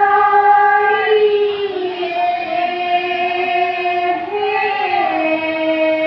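Women singing thiyo naam, the Assamese standing devotional chant, without instruments: long drawn-out notes, each held for seconds, stepping down in pitch about a second and a half in and again about five seconds in.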